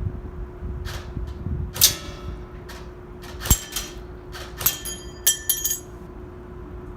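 Airsoft gun shots fired one at a time, the BBs striking the target with sharp clinks, some of them ringing briefly. About ten hits at an uneven pace, over a steady low hum.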